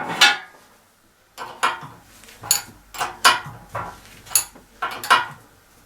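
A 17 mm spanner clinking against a hydraulic hose fitting as it is tightened onto the press's pump: a string of about nine sharp, irregular metallic clicks.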